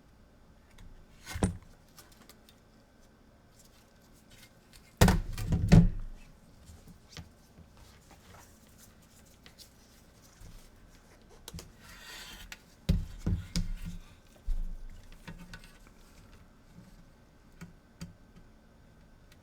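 Handling knocks and clatter of a circuit board and tools on a workbench: a single knock, then a loud cluster of thunks about five seconds in, a short rustle, and another burst of knocks about thirteen seconds in, with small ticks between.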